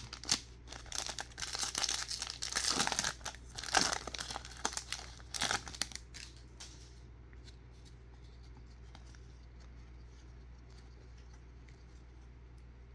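The wrapper of a Donruss baseball card pack is torn open and crinkled, a dense run of crackling and ripping that stops about six seconds in.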